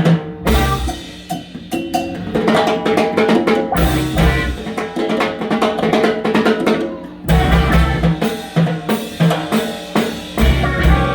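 Live band playing a salsa tune, with a bass line under drums and percussion and sharp ensemble accents every few seconds.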